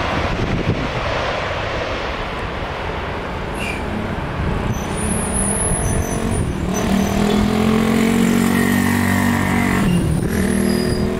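Airliner jet engines rumbling as an Airbus A320 rolls out after landing, a steady noise with a low hum and a higher whine that come in about two-thirds of the way through.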